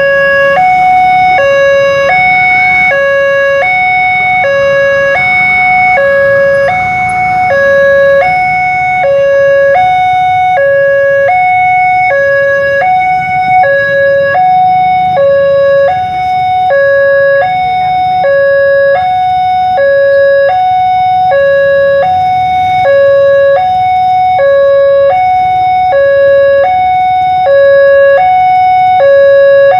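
Indonesian railway level-crossing electronic warning alarm sounding two alternating tones, a lower and a higher one, each held about half a second, repeating steadily. It warns that a train is approaching and the crossing barriers are down. Underneath is a low rumble of road traffic.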